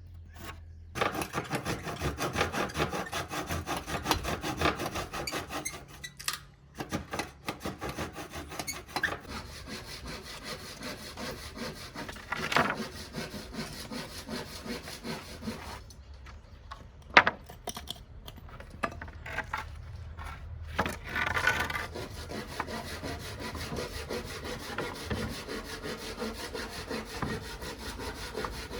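Hand saw cutting through wood in runs of quick back-and-forth strokes, pausing and restarting, with one sharp knock about halfway through.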